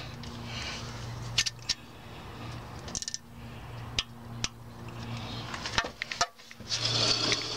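Wrench and socket tightening an oil pan bolt to torque: scattered sharp metallic clicks, one to a few each second, over a steady low hum.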